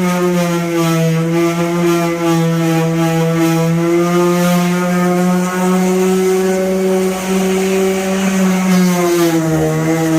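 Power sander running steadily on the car's body panels, a steady motor hum with a brief dip in pitch near the end.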